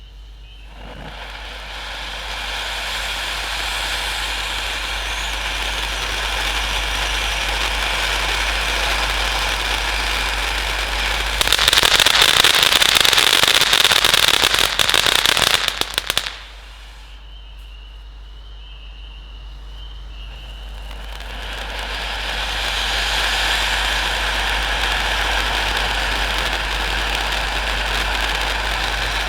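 Large 500-gram fountain firework spraying with a steady rushing hiss. About twelve seconds in it bursts into a louder phase of dense crackling, which stops abruptly after about four seconds. The spray then drops to a softer hiss and builds up again.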